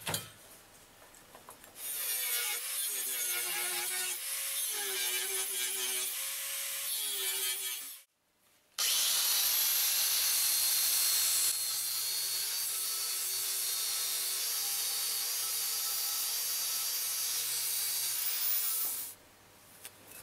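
Angle grinder fitted with a belt-sander attachment, running and sanding the edge of a steel plate. It comes in two passes with a short break between them, and in the first pass the motor's pitch dips and recovers every second or so.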